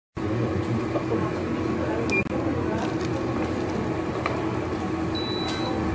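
EZ COOK IH-5600 self-service ramen cooker running with a steady hum. A short electronic beep sounds about two seconds in, and a higher beep lasting about half a second comes near the end.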